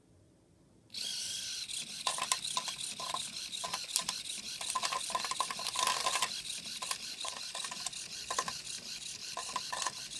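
Smart cat feeder's servo motor turning back and forth inside the food tube, churning dry kibble: a continuous rustling, rattling hiss with many small clicks as the pellets shift and drop out. It starts suddenly about a second in.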